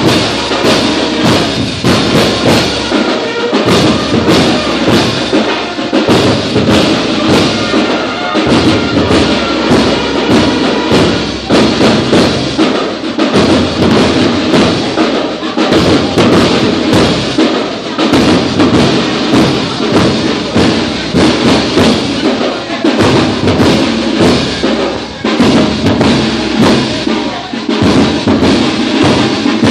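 Marching drum line playing a steady rhythmic beat: bass drum, snare drums and clashing hand cymbals.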